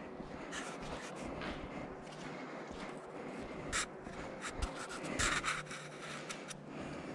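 Footsteps scuffing over a construction site's ground, with rubbing and scraping handling noise close to the microphone. A cluster of sharper scrapes and knocks comes in the second half.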